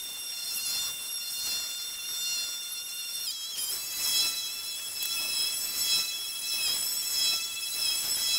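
A small electric motor whining and buzzing steadily at a high pitch, with a brief shift in pitch about three seconds in.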